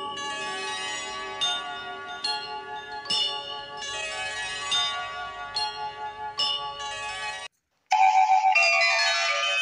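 Intro music of chiming, bell-like notes, a new one struck every second or so. It breaks off after about seven and a half seconds, and after a brief pause a louder, brighter chime jingle starts.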